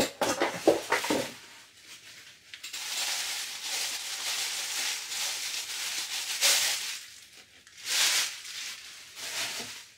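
Thin plastic bag rustling and crinkling as it is torn open and pulled off a bundle of fabric. The rustling is steady for several seconds, then comes again briefly near the end.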